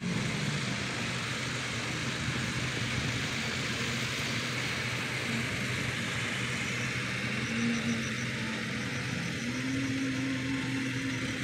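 Diesel engines of a crawler excavator and dump trucks running with a steady low hum, the note rising slightly about nine seconds in. Under it is the even rush of a shallow river running over stones.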